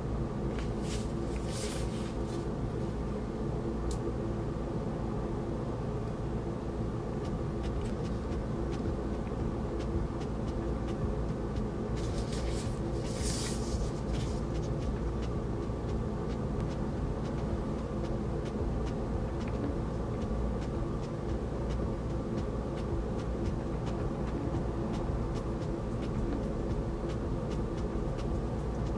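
Steady low rumbling room noise with a constant hum. About two seconds in, and more strongly around twelve to fourteen seconds in, come brief rustles of paper sleeves as a vinyl record is handled and slid out of its inner sleeve.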